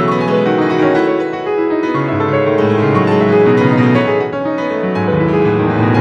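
Solo piano playing a busy passage of many changing notes spread across a wide range of the keyboard.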